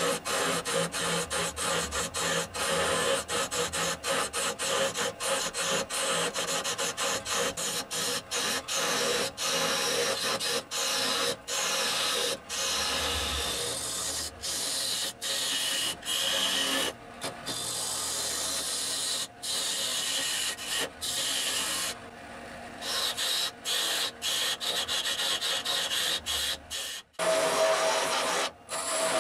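A lathe gouge cutting a spinning blank of unha-de-boi wood cast with resin: a steady scraping hiss that stops and starts many times in brief gaps.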